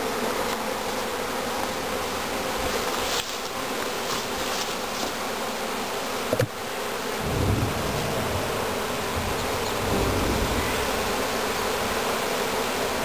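A honeybee swarm buzzing steadily, the dense hum of many bees just shaken into a hive box. A single sharp knock sounds about six seconds in.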